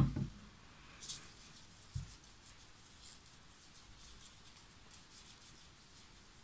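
A sharp knock, the loudest sound, as a Nivea foaming face-wash pump bottle is set down close to the phone, with a softer knock about two seconds in. After that comes faint, soft rubbing of hands working foaming cleanser over the skin of the face.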